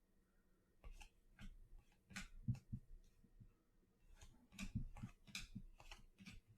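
Trading cards being handled and flipped through, a run of faint, crisp clicks and rustles.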